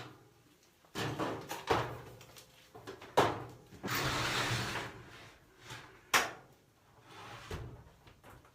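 Scattered knocks and clunks of hard equipment being handled and set in place, with a short hiss lasting about a second midway through.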